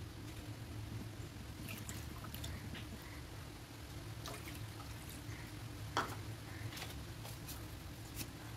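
Sugar and water warming in a non-stick pan on an induction cooktop: a faint steady low hum with scattered small ticks and pops, and one sharper click about six seconds in.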